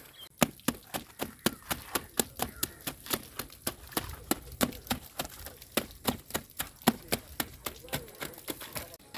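Rapid, steady hammering, about four strikes a second.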